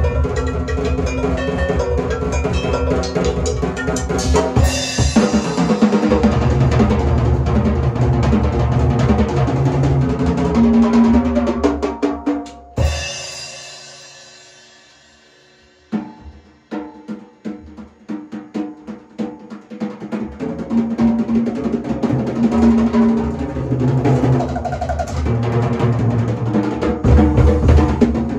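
Large drum kit played hard, with busy fills across toms, snare and bass drum. About 13 seconds in, one big hit stops the groove and the cymbals ring out and fade for about three seconds before the drumming starts again.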